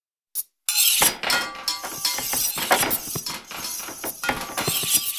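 Dense, continuous clatter of hundreds of overlapping metal clangs, knife clinks and wooden thuds, scattered at random moments to form the din of a massed sword-and-shield battle. It is built from a few impact samples multiplied across 500 sound particles with random delays. It starts after a short silence, just under a second in.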